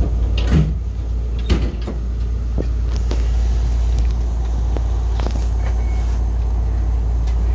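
Kotoden Kotohira Line electric train running, heard from inside the car: a steady low rumble with scattered knocks and rattles, growing slightly louder as the train gathers speed away from the station.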